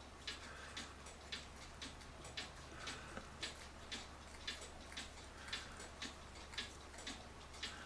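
A mechanical clock ticking steadily, about two light ticks a second.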